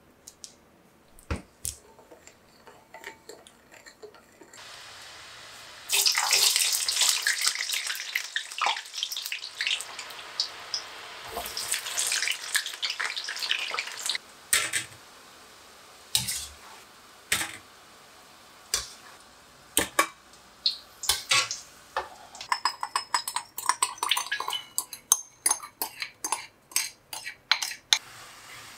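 Oil sizzling and crackling as cubes of kabocha squash deep-fry in a wok, loud from about six seconds in. Before that, a spoon stirs soy sauce in a glass bowl with light clinks. Near the end, a sugar, mirin and soy glaze bubbles in a frying pan with rapid pops.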